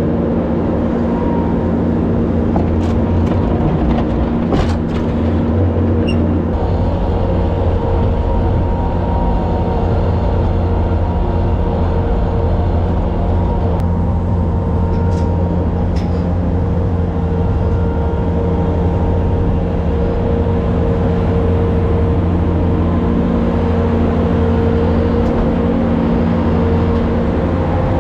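A farm machine's engine, most likely the skid steer used for moving silage, running steadily under load, with a few sharp clanks in the first seconds.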